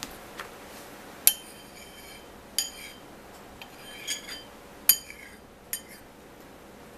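Metal spoon clinking against the side of a ceramic bowl as it stirs and scoops, about five sharp ringing clinks spaced a second or so apart.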